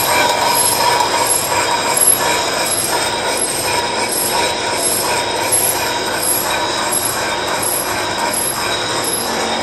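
Monarch engine lathe running under power with its chuck spinning: a steady mechanical running noise with a high-pitched whine.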